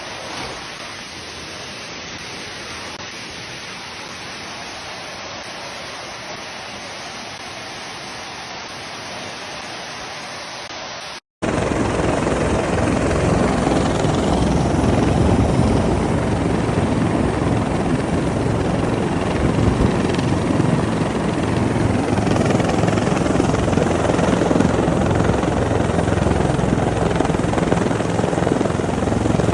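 Steady rushing of floodwater. After an abrupt cut about eleven seconds in, it is replaced by the louder, deeper, continuous drone of a helicopter's rotor and engine.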